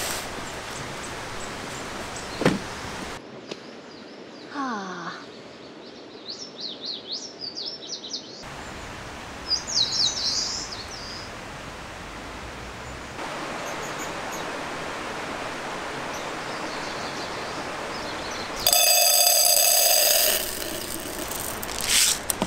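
Small birds chirping in quick, short phrases over a steady background of outdoor noise. Near the end comes a loud, even buzzing tone lasting about two seconds.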